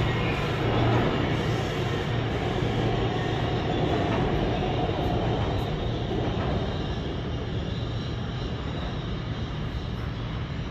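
New York City subway train running out of the station, its noise slowly fading. A steady low hum drops off about a second in.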